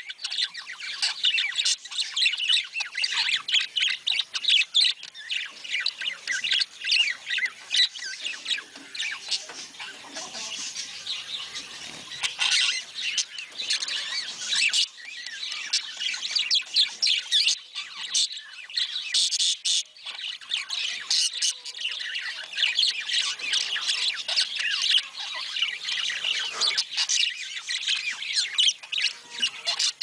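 Budgerigars chattering and squawking: a dense, unbroken stream of quick high chirps and squawks.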